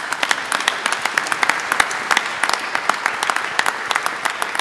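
Audience applauding, a dense, steady crowd of hand claps.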